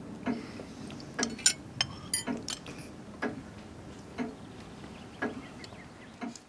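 Spoons clinking against china soup plates, several quick bright clinks between about one and three seconds in. Under them a clock ticks steadily, about once a second.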